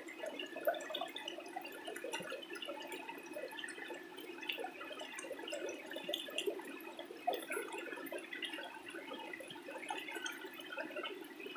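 Small rocky stream running and gurgling, with hands splashing and sloshing in the shallow water between the rocks, giving many small irregular splashes.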